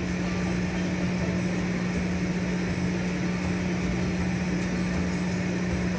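Offshore oil-and-gas platform machinery running: a steady drone with a constant low hum.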